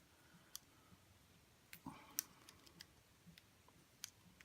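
Faint, scattered small clicks and taps of a crimp ring removal tool being worked on a PEX crimp ring, about eight in all, the strongest about two seconds in.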